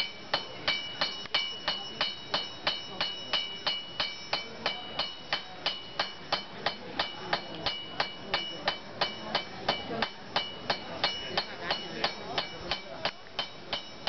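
Blacksmith's hand hammer striking red-hot iron on an anvil in a steady rhythm, about three blows a second, each blow with a bright metallic ring.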